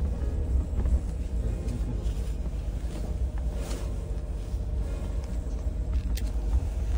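Steady low rumble of a moving vehicle heard from inside its cabin, the road and engine noise of driving a rough, bumpy mountain road.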